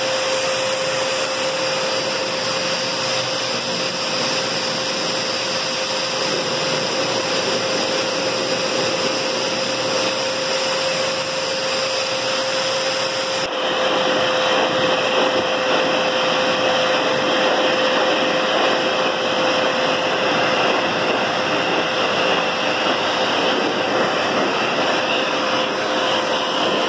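Hose-type dog grooming dryer running steadily: a loud rush of air with a steady motor whine. It gets a little louder about halfway through.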